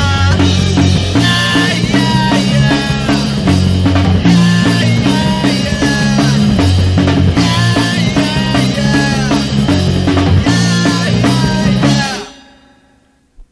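Rock song with a full drum kit, bass and melodic guitar or vocal lines. It ends about twelve seconds in, dying away quickly.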